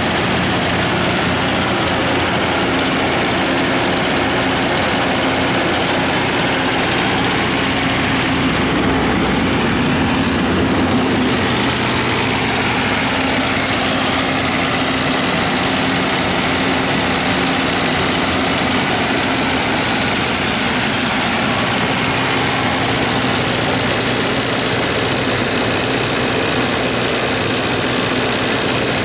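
Perkins 1004-4TG four-cylinder turbocharged diesel engine of a 75 kW generator set running steadily at constant speed, loud and even throughout.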